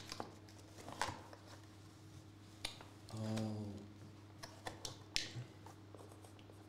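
Handling of a cardboard trading-card box: scattered light taps, clicks and scrapes as the box and card are moved, with a brief hummed 'mm' about three seconds in. A low electrical hum runs underneath.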